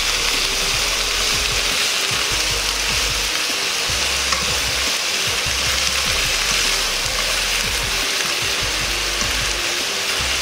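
Vegetables (cabbage and bean sprouts) sizzling steadily in a frying pan on low heat, with wooden chopsticks clicking and scraping against the pan as they are stirred.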